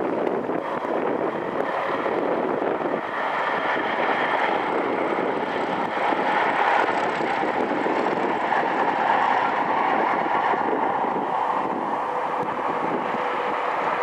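Class 31 diesel locomotives running past with a steam locomotive dead in tow: steady engine and rail noise with a faint tone running through it.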